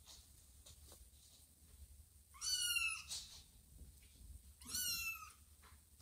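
Kitten meowing twice, two short high-pitched meows a couple of seconds apart, each rising slightly in pitch.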